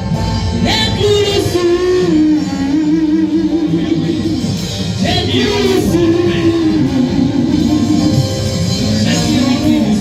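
Worship music: a sung melody, bending smoothly in pitch, over sustained instrumental accompaniment.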